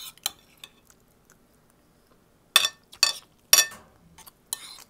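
Metal spoon and fork clinking against a plate: a couple of light taps at the start, then four louder, ringing clinks in the second half.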